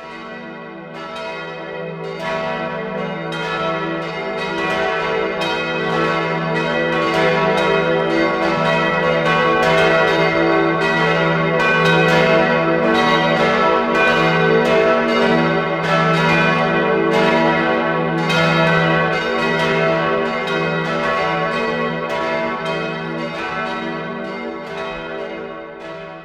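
Church bells pealing: several bells struck over and over in an overlapping, irregular pattern with long ringing tones. The sound fades in at the start and falls away near the end.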